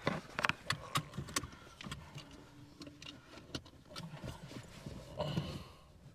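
Quiet clicks, knocks and rustling inside a car as someone settles into the driver's seat and handles the controls.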